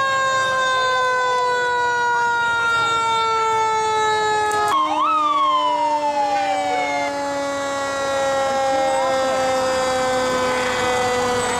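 Fire truck sirens sounding as the trucks pass: a long held tone that slowly sinks in pitch, breaking to a lower tone about five seconds in, with a short rising and falling wail over it just after.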